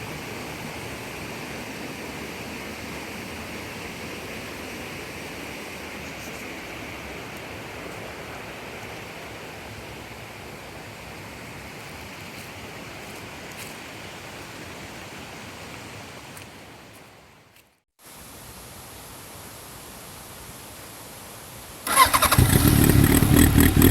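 Steady rush of falling water that fades out about three-quarters of the way through. After a short silence comes a quieter steady hiss, then near the end a much louder sound with rapid, regular pulses cuts in suddenly.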